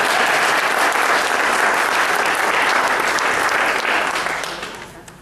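Congregation applauding, a dense, steady clapping that fades away over the last second or so.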